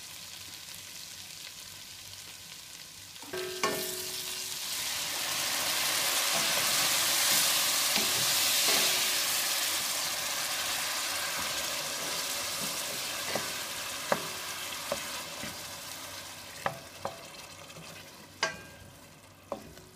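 Chicken frying in a hot metal pan; about three seconds in, water goes into the pan and sets off a loud hiss and sizzle that swells, then slowly dies down as the liquid heats. A wooden spoon stirs throughout, knocking against the pan now and then.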